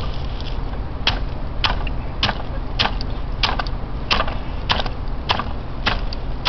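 Wooden hand hemp break slammed down again and again on a bundle of tough hemp stalks, about ten sharp wooden knocks at nearly two a second. Each stroke cracks the woody core of the stalks away from the bast fibre.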